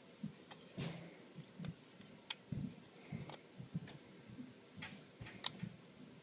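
Faint, irregular metallic clicks and light taps from a steel dog-proof raccoon trap being handled, its trigger worked to check that a freshly cut notch lines up.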